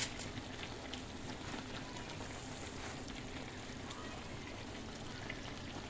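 Chicken siniya sizzling softly in its pan over a medium flame at the end of cooking, a steady crackling hiss.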